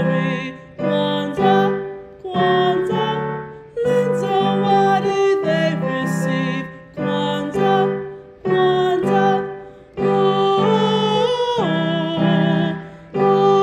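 Children's song: a singing voice with instrumental accompaniment, sung in short phrases with brief dips between them.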